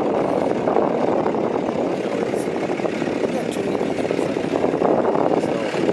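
Cummins turbo diesel engine of a Dodge Ram 3500 dually pickup idling steadily.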